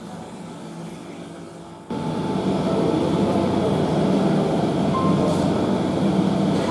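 Steady rumbling room noise in a museum gallery, which jumps sharply louder about two seconds in and stays loud.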